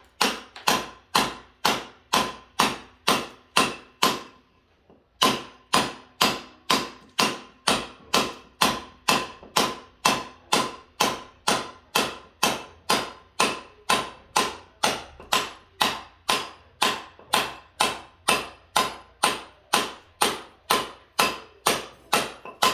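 Hammer blows striking repeatedly at a steady pace, about two to three a second, each with a short ringing tail, with a brief pause about four seconds in before the hammering resumes.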